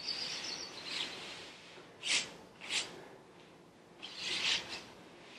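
A handful of soft, short rustles and rubs, the longest near the end, from a cotton karate uniform and bare hands and feet shifting on a carpeted floor during a wide-leg floor stretch.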